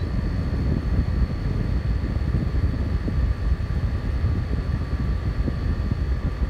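Arctic King portable air conditioner running, a steady low rumble of fan and rushing air with a faint constant high tone over it.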